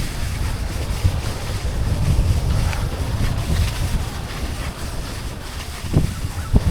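Wind buffeting the microphone of a skier moving downhill, a steady low rumble with a hiss over it. A sharp knock comes about six seconds in and another just before the end.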